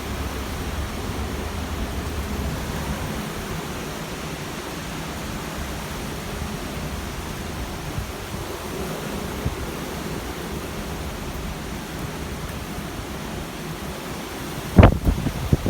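Typhoon wind blowing hard and steadily. Near the end a gust hits the microphone as a sudden loud low buffeting blast, followed by a few smaller ones.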